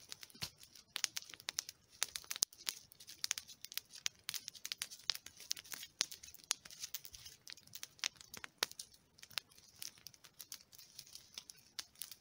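Small campfire crackling and popping irregularly as fresh spruce boughs burn on it to make a smoky fire.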